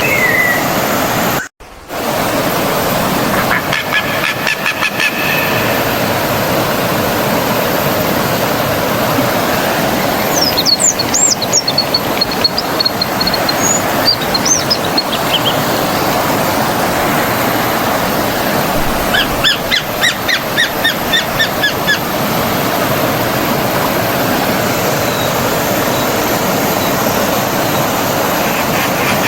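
Stream water flowing steadily, with birds calling over it: several harmonic calls and chirp series. The audio drops out briefly about a second and a half in.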